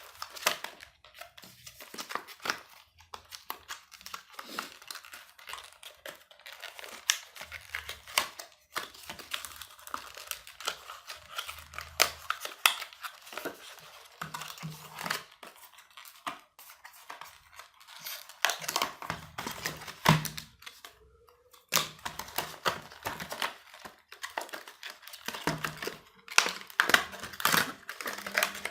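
HDMI cable packaging being handled and opened, with irregular crinkling, crackling and tearing.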